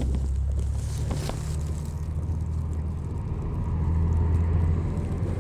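A steady low engine-like hum, swelling slightly about four seconds in.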